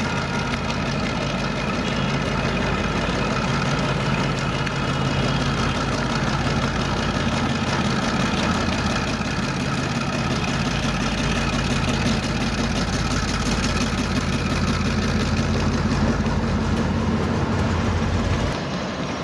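General Motors-built class MEG-11 diesel-electric locomotive's engine running steadily as it hauls a container train past, a low, even drone that drops off near the end as the locomotive passes by.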